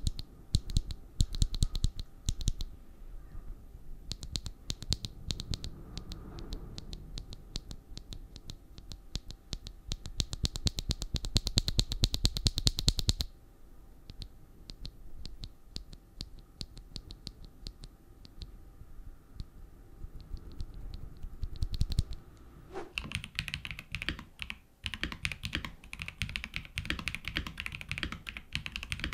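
Typing on an Akko PC75B Plus mechanical keyboard with factory-lubricated linear switches and PBT keycaps. Fast runs of keystrokes ease off about halfway, and from about three-quarters of the way in the keystrokes sound brighter.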